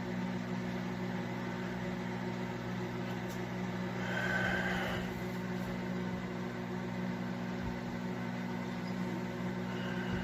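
Toshiba microwave oven running with a steady low hum, and a brief higher tone about four seconds in. The owner takes the noise for a turntable that turns too slowly.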